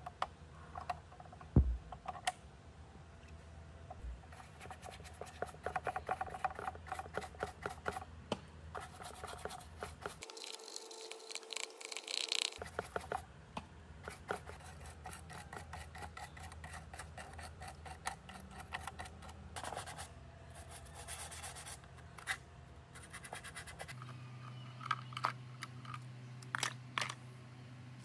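A small brush scrubbing and a pointed tool scratching over a wet computer motherboard: a run of quick, irregular scrapes and clicks, with a brighter, hissier stretch of brushing a little before the middle.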